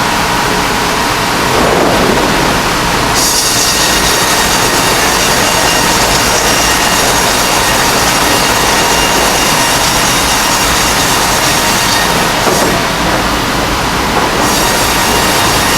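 Double-cut bandsaw mill sawing red oak: loud steady machine noise with a constant whine from the running band blade. A high hiss from the cut comes in about three seconds in, drops away briefly near the end, then returns.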